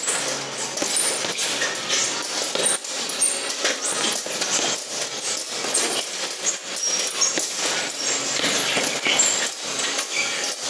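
Punches striking a hanging heavy punching bag in an irregular, fast run of hits, with light metallic clinking and jingling throughout.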